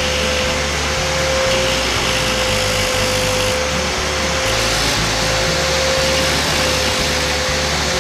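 Angle grinder spinning a blue abrasive disc, with a steady whine and hiss as the disc grinds and polishes an old metal shaft to bare metal. Background music with a low beat runs underneath.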